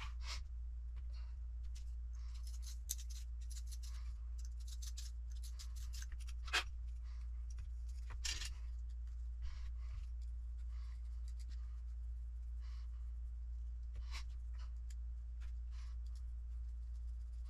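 Small RC kit parts being handled on a workbench: light scratchy scraping and soft clicks, with a sharper click about six and a half seconds in and another about eight seconds in.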